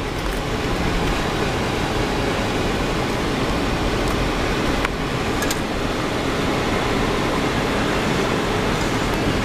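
Car driving, with steady road and engine noise heard from inside the cabin.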